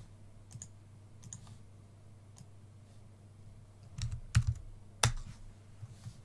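Computer keyboard keystrokes: a few light taps, then a quick cluster of louder keystrokes about four seconds in and one sharp click about five seconds in.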